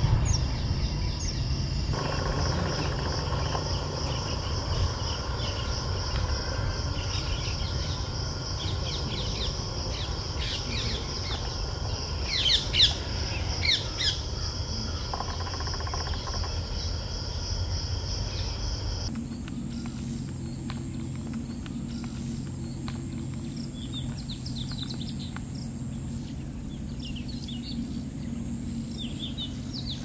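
Natural field ambience of a steady, high insect drone with scattered bird chirps. A louder cluster of calls comes about halfway through. About two-thirds of the way in, the drone shifts to a higher pitch and the low background rumble thins out.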